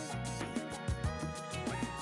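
Background music with a steady beat and sustained instrument notes.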